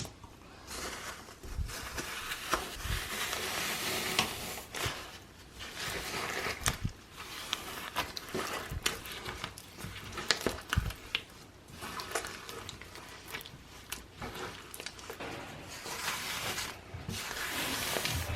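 Hands squishing and kneading sticky clear-glue slime mixed with crumbled floral foam cubes, giving an uneven crackling with many small clicks and pops.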